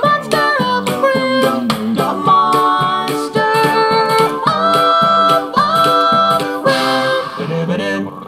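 Multitracked a cappella singing by one man, layered voices without lyrics standing in for the theme song's band: a rhythmic bass line bouncing under held chords, with short percussive hits keeping the beat. It thins out and drops in level near the end.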